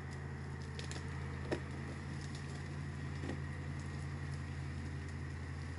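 Tractor engine idling steadily with a low hum, with a few faint ticks over it.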